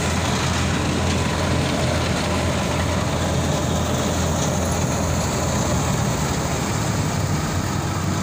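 Tractor-driven wheat thresher running steadily as it threshes wheat: a constant low machine hum with a rushing noise over it.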